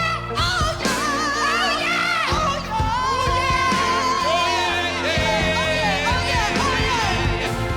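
Live rock-soul band performance with soulful singing, the vocal lines wavering with vibrato and one long held note about three seconds in.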